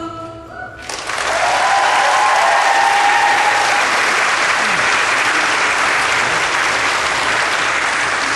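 Audience applause breaking out about a second in, as the last of the song dies away, with a whoop over it early on the clapping.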